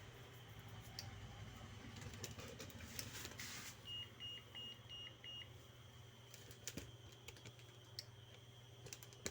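Electronic buzzer giving about five short high beeps in quick, even succession, followed by a few scattered faint clicks, all over a low steady hum.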